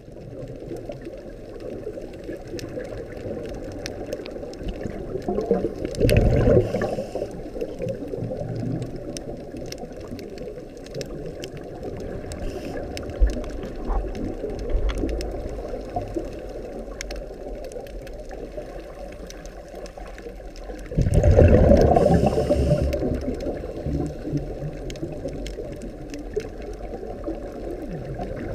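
Muffled underwater water noise, a steady rush with little high end. It swells into a louder surge twice, about six seconds in and again about twenty-one seconds in.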